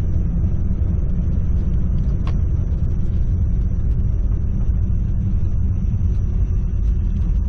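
1998 Jeep Cherokee XJ driving along, a steady low rumble of engine and road noise, with a single sharp click a little after two seconds in.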